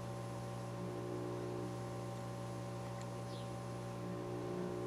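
Steady electrical mains hum made of several constant tones, with a faint, short, high falling chirp about three seconds in.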